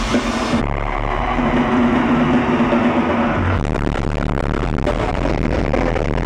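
A live rock band playing loudly in an arena. The sound changes abruptly about half a second in and again about three and a half seconds in.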